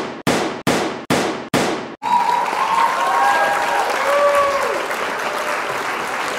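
End-card sound effects: a row of sharp strikes, about two a second, that stop about two seconds in. They give way to a steady wash of applause and crowd cheering with a few wavering whistles.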